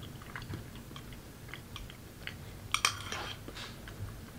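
A person chewing a mouthful of rabbit stew close to the microphone: soft, wet mouth clicks. A brief cluster of sharper clicks comes about three seconds in.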